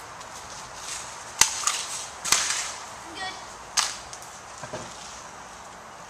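Airsoft guns firing single shots: three sharp snaps spread over a few seconds, the first about a second and a half in.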